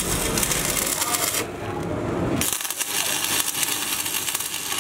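Stick (arc) welding on a steel truck wheel rim: the electrode's arc crackles and sizzles. The crackle stops for about a second in the middle, then starts again.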